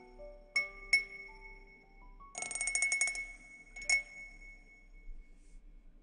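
A gentle chime melody of soft held notes, with a bright bell-like chime struck a few times. About two and a half seconds in comes a quick run of rapid strikes, and a last single strike follows before the ringing dies away.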